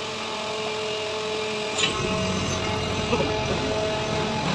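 Steady machinery hum with a couple of steady tones. There is one sharp click a little under two seconds in, and after it a low rumble comes in.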